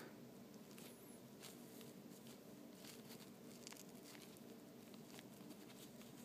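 Near silence: faint steady room hum with a few soft ticks.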